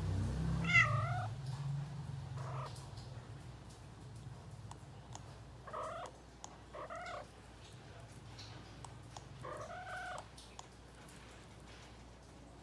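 Calico cat meowing: about five short meows spread out, the loudest and most wavering about a second in.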